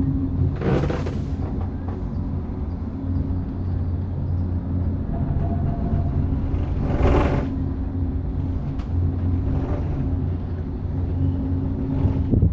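Steady low hum with wind noise inside a moving cableway gondola cabin. Two brief rushes of louder noise come about a second in and about seven seconds in.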